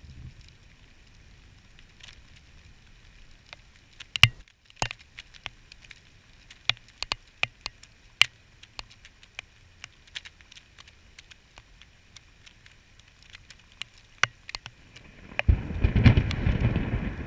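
Raindrops ticking irregularly on a GoPro's housing as sharp clicks, over a faint hiss of rain. About fifteen seconds in, a loud low rumble starts and carries on.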